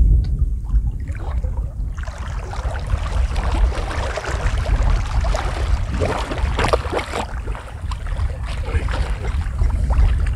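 Wind buffeting the microphone on an open boat on the water, a heavy low rumble, with a louder stretch of crackly, hissing noise from about two to seven seconds in.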